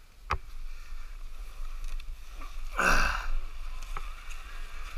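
Dirt bike engines running, with a sharp click near the start and a louder surge of noise about three seconds in.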